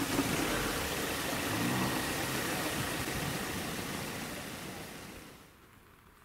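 Steady rushing hiss of river water, with a low hum under it for the first couple of seconds; the sound fades out about five and a half seconds in.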